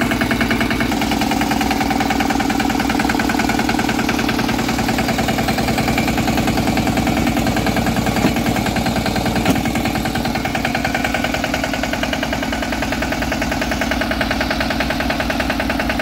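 DK Champion 160 DI mini tractor's 16 HP single-cylinder water-cooled diesel engine idling steadily with a regular beat. Two faint clicks come about eight and nine and a half seconds in.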